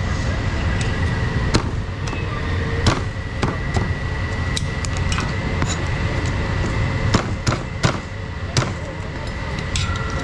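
A meat cleaver chopping on a cutting board: irregular, scattered knocks about a second apart, over a steady low rumble of traffic and machinery.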